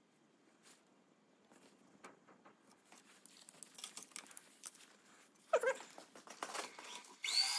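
Light metal clicks and rattles as a dial test indicator and hand tools are handled on a line-boring bar, followed by two short high wavering whines about five and a half and seven seconds in, the second the loudest.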